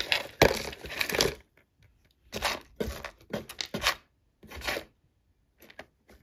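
Plastic bags crinkling and rustling as they are handled: a dense stretch of rustling, then a string of short crinkles with quiet gaps between.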